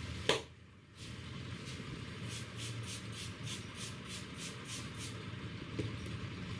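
Barber's hands tapping rhythmically on a head during a head massage, light quick taps about four a second, after one sharp snap near the start.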